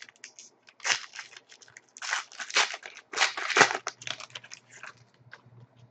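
Trading-card pack wrapper crinkling and cards being handled, in irregular rustling bursts, the loudest about a second in and between two and four seconds in.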